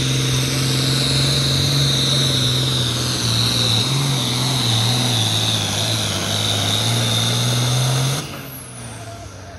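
International turbo diesel pulling tractor at full throttle hauling the sled, a steady engine drone with a high turbo whistle over it. About eight seconds in the throttle is cut: the engine drops away abruptly and the turbo whine winds down as the pull ends.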